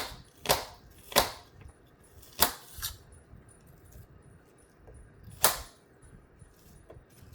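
Knife chopping an apple on a cutting board: about six sharp knocks at irregular intervals, with a longer pause midway.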